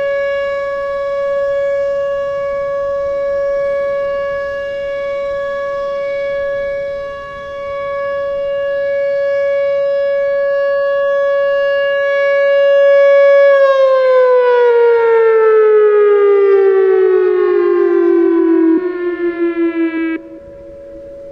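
Whelen Vortex outdoor warning siren sounding its alert signal, a steady loud tone that then winds down in a long falling pitch. As it slows, the sound wavers with echoes, then cuts off sharply near the end, leaving only a faint steady tone.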